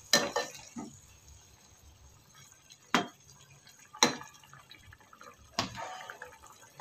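Steel spoon stirring a wet curd-and-tomato masala in an aluminium pressure cooker: about six sharp clinks of the spoon against the pot, with soft wet stirring sounds between.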